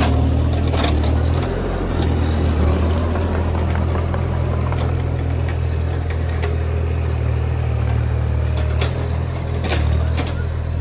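JCB 30PLUS mini excavator's diesel engine running steadily at low speed, with scattered clicks and knocks.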